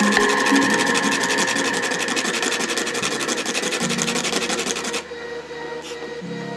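A PVC piece being sanded: its edge is rubbed quickly back and forth on sandpaper, a fast run of scratchy strokes that stops suddenly about five seconds in. Faint background music plays throughout.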